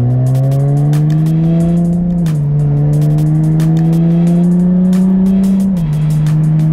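Jaguar F-Type S's supercharged V6 pulling under acceleration, its note rising steadily and dropping twice as the gearbox shifts up, about two seconds in and again near the end. Short sharp ticks run through it.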